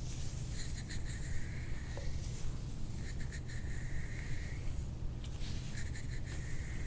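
Repeated rubbing or scratching strokes, three in all, each lasting one to two seconds with short gaps between, over a steady low hum.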